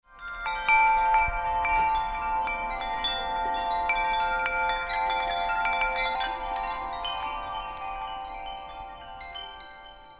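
Shimmering chime music: a dense run of quick, ringing bell-like strikes over a held chord. It swells in about half a second in and fades out gradually over the last few seconds.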